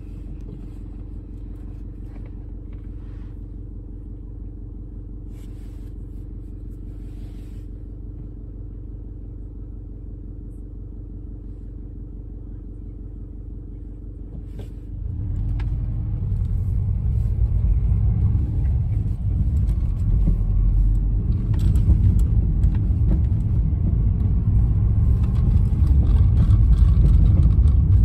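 Car engine idling, heard from inside the cabin as a steady low hum; about halfway through the car pulls away, and engine and road rumble grow louder as it drives on.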